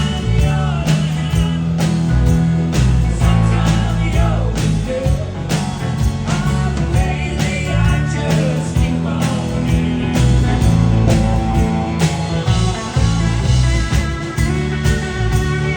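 Rock band playing live: guitars and bass over a steady drum beat.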